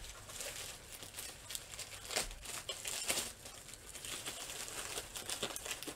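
Packaging being handled: irregular crinkling and rustling, with a few sharper crackles.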